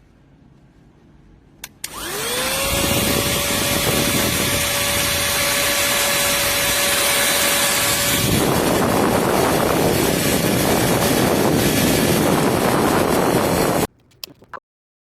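Cordless handheld mini vacuum cleaner switched on with a click, its motor whine rising and settling to a steady pitch. Partway through, the whine gives way to a rougher rushing noise. It is switched off abruptly near the end, followed by a few clicks.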